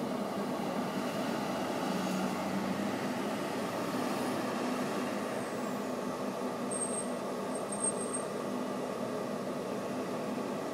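Rescue ambulance's engine running steadily as it pulls out of the station bay and drives off, loudest a couple of seconds in. Two brief high-pitched tones sound near the end.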